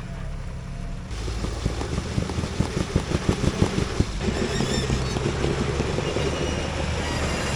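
Off-road vehicle's engine revving under load as it tries to climb a rock obstacle. From about a second in comes a rapid string of sharp knocks and bangs lasting a couple of seconds, then the engine holds a steadier, higher note.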